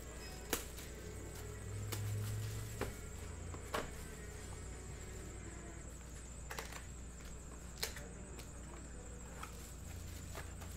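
Scattered light clicks and taps from a sealed trading-card box being unwrapped and opened and its foil packs lifted out and set down.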